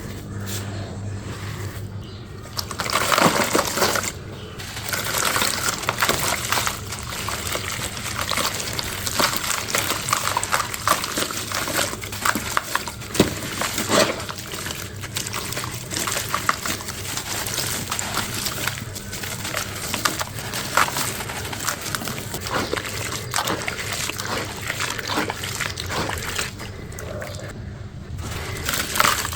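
Crunchy crumble blocks being crushed and crumbled, a dense run of fine crackling and crunching with many small snaps. It is a little louder a few seconds in.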